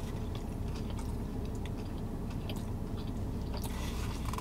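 A person chewing a big mouthful of bacon cheeseburger, with small soft clicks and squelches scattered throughout, over a steady low hum.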